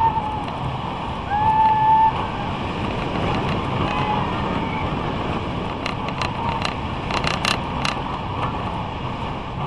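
Roller coaster train running the track, heard from a camera on the car: steady rushing wind and rumble. A brief held cry comes about a second and a half in, and a run of sharp clicks and rattles comes later.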